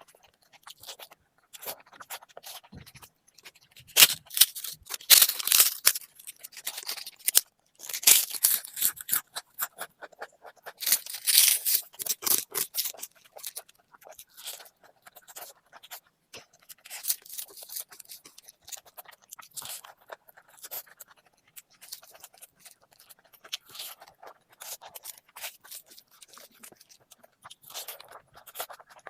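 Close-miked eating: a person chewing, with rapid mouth clicks and crunches, loudest in three spells in the first half and quieter chewing after.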